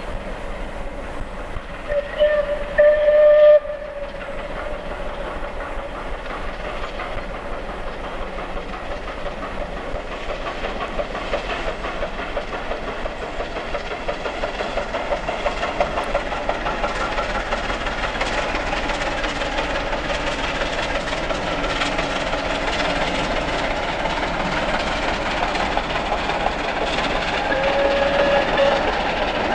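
Bulleid Battle of Britain class three-cylinder steam locomotive 34067 Tangmere working hard with a long train, its exhaust beating rapidly and growing steadily louder as it approaches. Its whistle sounds about two seconds in for over a second, the loudest moment, and again briefly near the end.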